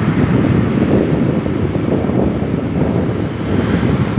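Wind blowing across the microphone, a loud, steady rushing noise.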